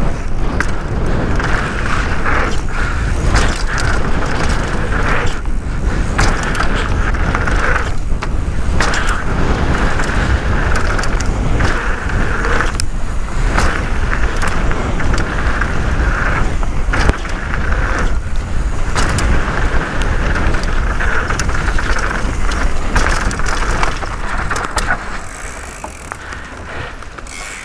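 Downhill mountain bike descending a dirt trail at speed: wind buffeting the microphone, tyres rolling on dirt, and the bike rattling and clicking over bumps. Quieter for the last few seconds as the bike slows.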